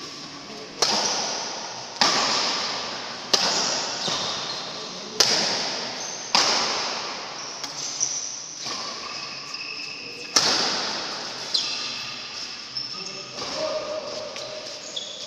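A badminton rally: rackets striking the shuttlecock about ten times, every second or two, each sharp smack ringing on in the large, echoing hall. Short high squeaks come between some of the hits.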